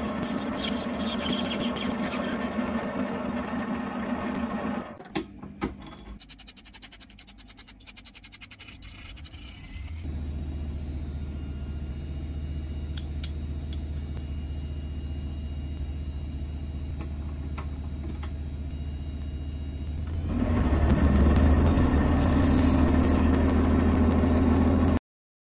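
A small electric power tool's motor running steadily, stopping with a few clicks about five seconds in, then running again with a low hum from about ten seconds and louder from about twenty seconds, until the sound cuts off abruptly near the end.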